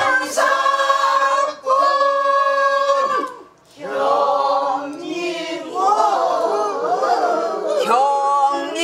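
Pansori singing: long held notes with heavy vibrato, one voice at first, then after a short break several voices singing the line together, their pitches wavering and not quite matched.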